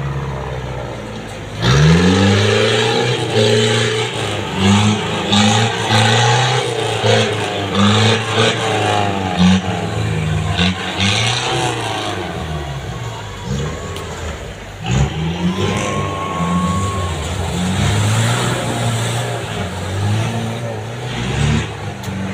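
Off-road 4x4 jeep engines revving over and over, the pitch rising and falling as they are driven under load through deep mud.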